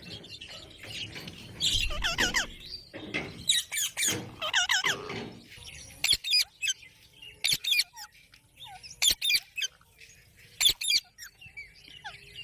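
Parrots calling: bursts of short, quick, warbling squawks and chirps repeated every second or two.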